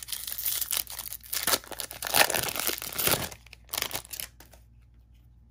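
Foil wrapper of a Topps Chrome trading-card pack being torn open and crinkled by hand: a run of sharp crackles, loudest in the middle, that stops about four and a half seconds in.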